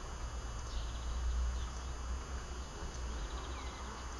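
Outdoor background noise: a steady low rumble with a few faint, short high chirps.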